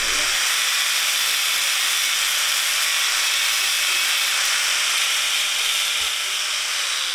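Angle grinder with a diamond disc cutting porcelain stoneware tile: a loud, steady hiss of the cut. Right at the end the level begins to drop and a falling whine sets in as the disc starts to wind down.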